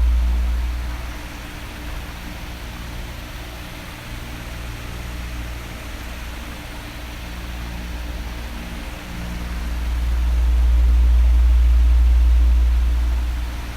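Oscillating electric fan blowing, a steady whoosh of air with a faint motor hum. A deep rumble of air on the microphone fades about a second in and swells again from about nine seconds as the fan's head sweeps back toward it.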